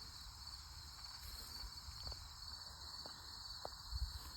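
Insects singing steadily in the grass, a continuous high-pitched drone, with a few faint ticks and a low bump near the end.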